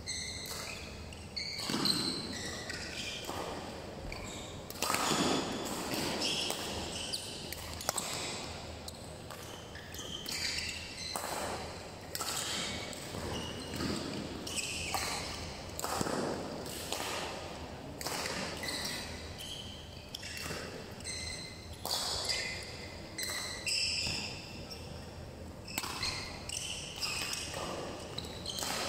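Badminton rallies: rackets hitting the shuttlecock with sharp strokes, and court shoes squeaking on the floor between shots.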